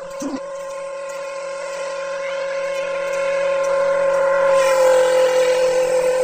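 A motor vehicle engine drones steadily and grows louder as it approaches, its pitch dipping slightly a little past the middle.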